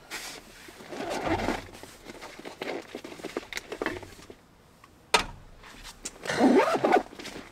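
Handling noises as a beer is fetched and opened: rustling and clinks, with a sharp crack about five seconds in.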